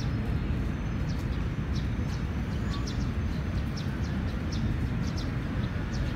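Short, high chirping calls repeated irregularly, two or three a second, over a steady low outdoor rumble.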